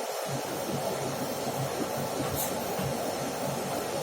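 Paper-cutting machine running with a steady mechanical noise: an even hiss over a low hum.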